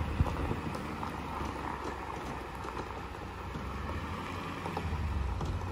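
Ford F-450 pickup's engine running at a low rumble under load as it tows a heavy fifth-wheel trailer slowly through a sharp turn. The rumble grows louder about five seconds in.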